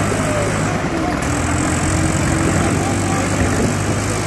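Diesel engines of two tractors, a New Holland 3600-2 and a Swaraj 855, running steadily while hitched back to back for a tug-of-war.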